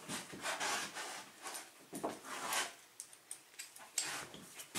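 Scattered light clicks, knocks and rustles of a Master padlock being searched out and picked up by hand.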